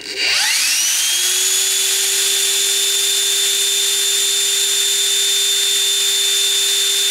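Three-phase blower motor of a Milwaukee M12 Fuel vacuum, housing open, spinning up on high power. Its whine rises for about a second, then runs steadily at about 24,000 RPM over a rush of air.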